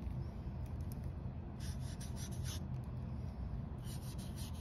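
Black marker drawing lines on paper: a quick run of scratchy strokes about one and a half seconds in and another near the end, over a steady low hum.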